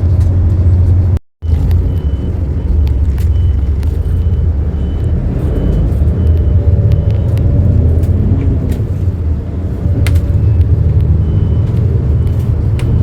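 Bus engine and road rumble heard from inside a moving city bus, steady and low, with the engine pitch rising and falling in the middle. It breaks off briefly about a second in, where the recording cuts.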